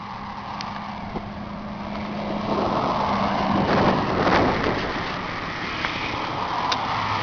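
Hinomoto compact tractor's diesel engine idling steadily, with a rush of noise swelling about three to four seconds in.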